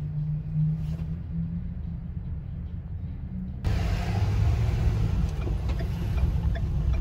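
City bus engine running with a steady low hum; about three and a half seconds in the sound jumps abruptly louder and fuller.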